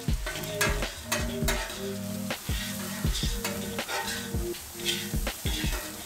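Fried rice with soy sauce sizzling on a hot flat-top griddle as it is tossed and chopped with two metal spatulas. The spatula blades scrape and clack against the steel many times, over a continuous hiss.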